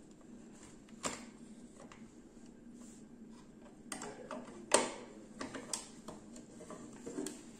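Plastic LEGO Duplo bricks and parts clicking and tapping as they are handled and pressed onto the baseplate: a handful of sharp clicks, the loudest a little past halfway.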